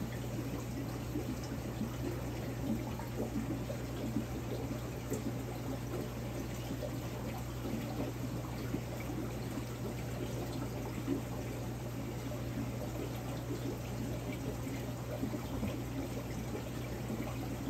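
Large overflow aquarium running: water bubbling and trickling steadily over a constant low hum.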